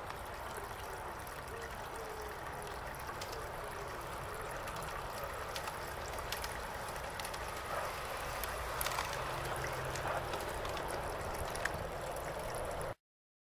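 Large-scale garden railway train running along the track toward the camera: irregular light clicks of the wheels on the rails over a steady hiss, getting a little louder in the second half. The sound cuts off suddenly near the end.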